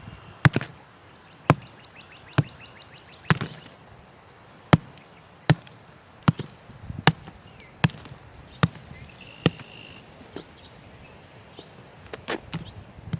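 Sledgehammer striking and breaking up a driveway's surface around a washed-out sinkhole. The blows come sharp and separate, about one a second at an uneven pace, with a gap of a second or two near the end.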